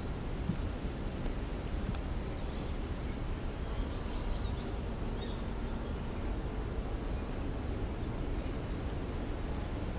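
Steady low background noise with a few faint, short high chirps and clicks.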